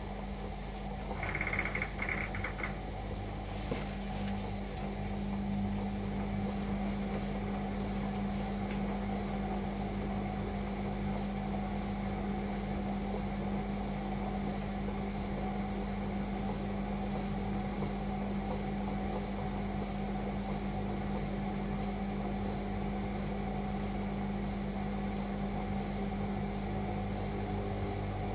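Indesit washing machine running with a steady mechanical hum. About a second in there is a short burst of high beeping pulses, then a click, after which the hum settles a little louder.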